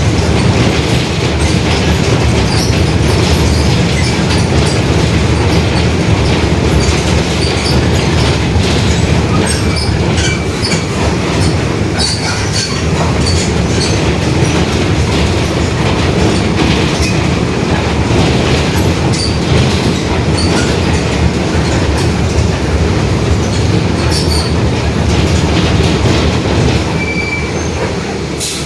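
Mercedes-Benz OF-1721 BlueTec 5 city bus under way: steady diesel drone and road noise with a droning differential, over many small rattles and clicks from the body. The noise eases slightly near the end.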